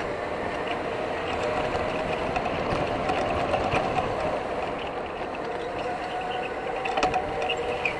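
Electric go-kart running at race pace, its motor whine sagging and rising in pitch as speed changes, over a rough rumble from the kart. A few sharp clicks or rattles come about seven seconds in.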